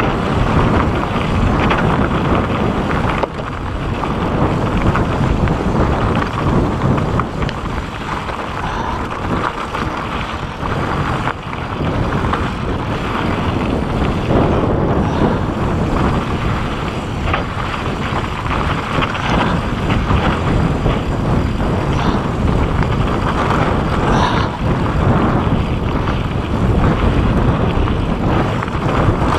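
Mountain bike speeding downhill on a rocky dirt trail: wind buffeting the camera microphone and tyres rumbling over the dirt, with frequent short knocks and rattles from the bike over bumps.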